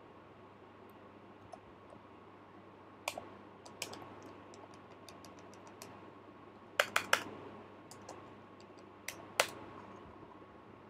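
Computer keyboard typing: scattered keystrokes, a run of soft quick taps, then louder clacks in a quick group of three and a pair near the end, over a faint steady hum.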